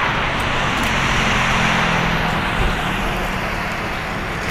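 Boeing 777F freighter's GE90 turbofan engines running at taxi power as the jet rolls past, a steady rush of jet noise that eases slightly near the end.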